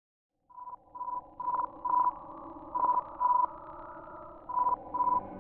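Morse code 'HI' sent by amateur radio operators and received by the Juno spacecraft, played back as audio: short, even beeps in groups of four dits, a pause, then two dits, over a steady hiss and hum. The signal starts about half a second in and begins repeating near the end, with a second run of four.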